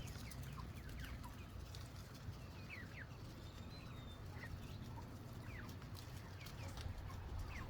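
Chickens peeping and clucking: scattered short, falling chirps come one after another over a steady low rumble.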